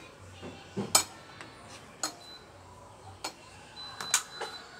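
A few sharp clicks and knocks as an electric wall fan's plastic housing and parts are handled, the loudest about a second in, over a faint low hum.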